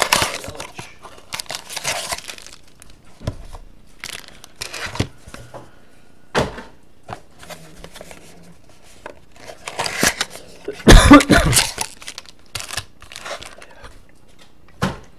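Cardboard trading-card box being torn open and its foil-wrapped pack handled: a string of short tearing and crinkling noises, loudest about eleven seconds in.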